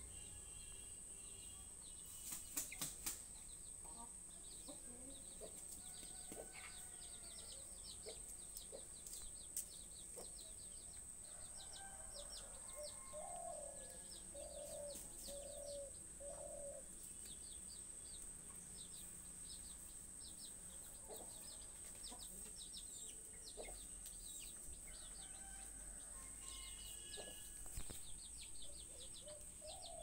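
Aseel chickens pecking grain off a concrete floor: sharp pecking taps, with a short run of low clucks about halfway through. Faint high chirping and a steady high-pitched whine sit underneath.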